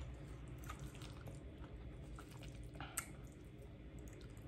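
Metal fork working through cheesy baked spaghetti squash strands, soft wet squishes with small scattered clicks and one sharper tick about three seconds in.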